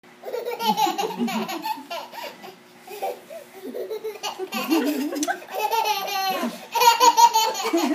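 A toddler laughing in repeated bursts, with lower-pitched adult laughter mixed in.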